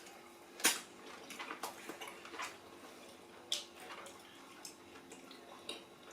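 Eating sounds at a table: scattered small wet mouth clicks and light taps of dishes, the sharpest click about two-thirds of a second in.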